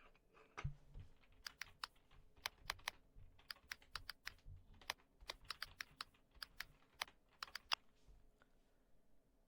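Faint typing on a computer keyboard: a run of irregular key clicks that stops a couple of seconds before the end.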